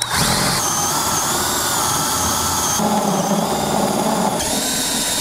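Cordless drill spinning a rib-cutting hole saw through the wall of a ribbed plastic tank riser, running steadily with a whine whose tone shifts a few times as it cuts.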